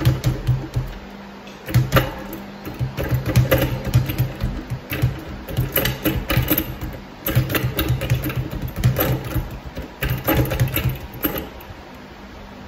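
Speed bag being punched in a fast, steady rhythm, the bag rattling against the wooden rebound board of an Everlast wall-mounted platform. After a short opening burst it breaks off about a second in, then keeps going until it stops about a second before the end.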